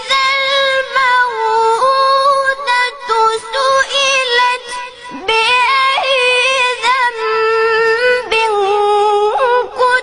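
A young child's voice chanting Quran recitation, holding long high notes with wavering ornamented turns, broken by short breaths about every two to three seconds.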